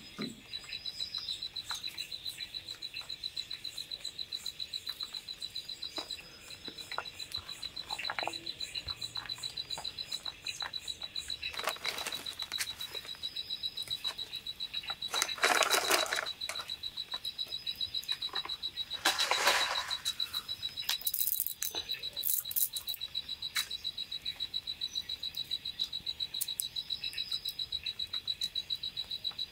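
A night chorus: one high-pitched call pulsing rapidly and without a break. It is crossed by scattered clicks and, around the middle, by two louder rushing noises, each about a second long.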